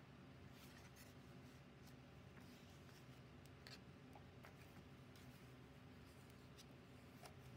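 Faint rustling and a few soft ticks of paper and card pages being turned in a handmade junk journal, over a low steady hum.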